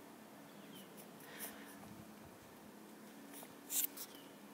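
Faint rustling and scratching from a phone being handled while its holder moves about, with a few short scrapes and the loudest one a little before the end.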